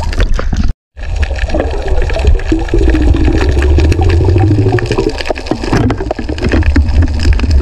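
Underwater water noise: a loud, churning rumble with bubbling and scattered clicks against the camera housing, cutting out briefly just under a second in.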